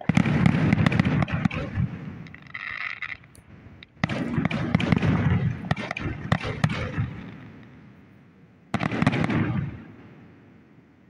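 Aerial firework shells bursting: three loud booms, at the start, about four seconds in and near nine seconds. The first two are followed by a few seconds of crackling.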